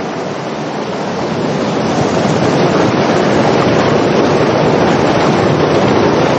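Muddy floodwater gushing out of a culvert pipe: a loud, steady rush of churning water that grows louder over the first couple of seconds.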